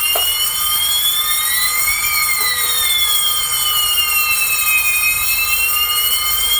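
Fire alarm sounders set off by a pressed manual call point. A loud electronic wail slowly rises and falls, about once every six seconds, over steady high ringing tones.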